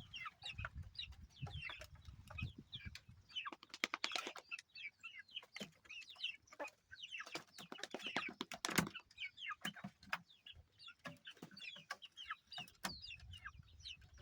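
Domestic chicks peeping: many short, high, falling chirps overlapping throughout, with a quick run of sharp clicks about four seconds in.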